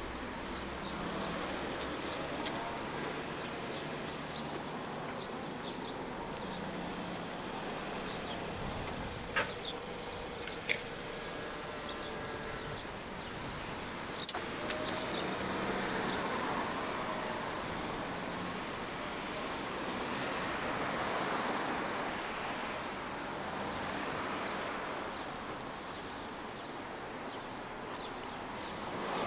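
Street ambience: a steady hum of road traffic with cars passing by in slow swells. A few sharp clicks or knocks come around the middle.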